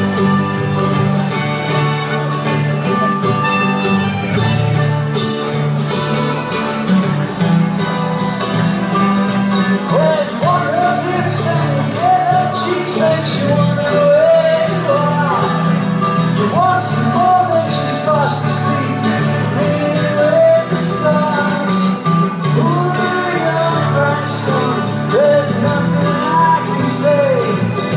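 Live acoustic band playing: strummed acoustic and electric guitars with accordion, and a voice singing from about ten seconds in.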